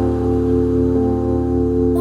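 Background music: calm sustained chords, with a chord change about a second in.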